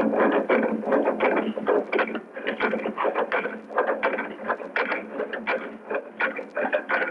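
Wood-turning chisel cutting into a wooden spindle spinning on a lathe: a quick, uneven run of scraping, rasping cuts, several a second.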